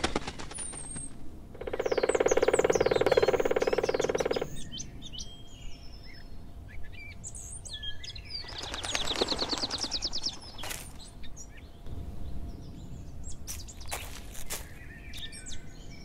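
Birds chirping, with a woodpecker's rapid drumming rattle starting about one and a half seconds in and lasting about three seconds, and a second, shorter rattle near the middle. A few sharp clicks near the end.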